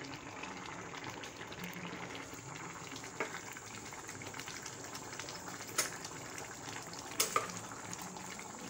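A pot of beans and plantain bubbling at a steady boil. A spoon stirring it clicks sharply against the steel pot four times, the last two close together near the end.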